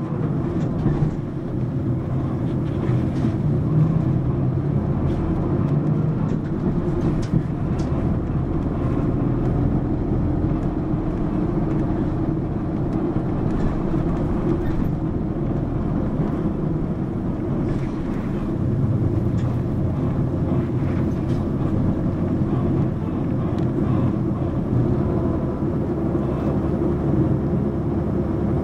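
Mitsubishi Fuso PA-MK25FJ medium bus's four-cylinder turbo diesel running steadily, heard from inside the bus: a constant low engine drone with road noise and scattered light clicks and rattles.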